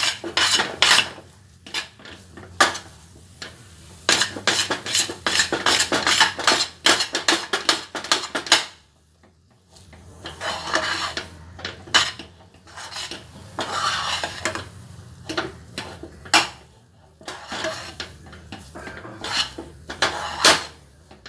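Steel spoon scraping and stirring a thick sesame-and-jaggery burfi mixture around a stainless steel pan in quick repeated strokes, with a short pause about nine seconds in. The mixture is being cooked down until it curls away from the pan.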